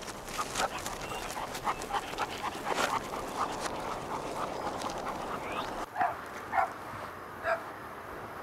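A dog barking repeatedly, with three louder single barks in the last few seconds.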